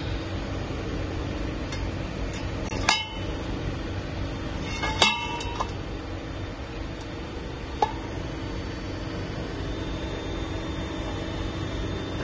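Three sharp metallic clinks of metal striking metal, the second one ringing briefly, over a steady factory machine hum.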